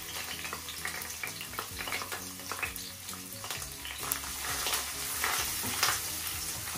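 Chopped garlic and dried red chillies sizzling and crackling in hot oil in a stainless steel frying pan, stirred with a wooden spatula that scrapes across the pan.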